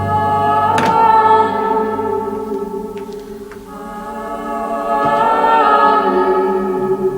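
Film score music with sustained, choir-like held voices, dipping in volume about halfway through and swelling again towards the end.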